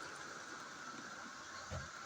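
Hornby class 56 model locomotive running slowly on the track, a steady motor whine with wheel-on-rail noise, and a single low thump near the end.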